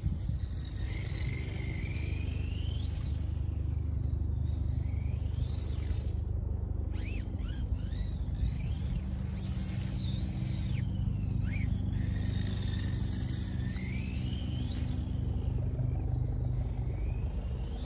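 Large-scale RC buggy driving: a high motor whine that rises and falls again and again with the throttle, over a steady low drone.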